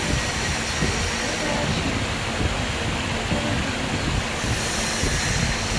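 5-axis CNC router running, its spindle carving a block of EPS foam: a steady machine noise with faint high steady tones over an uneven low rumble.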